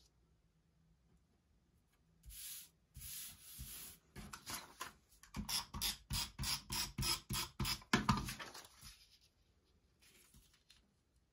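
Scrapbook paper sliding and rustling against a cutting mat, then a quick run of short rasping strokes of a tape runner laying adhesive on the paper, about four a second and loudest near the end of the run.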